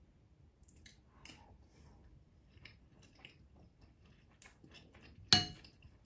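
Metal spoon clinking and scraping against a ceramic bowl while scooping stew: scattered light taps, then one sharp clink about five seconds in.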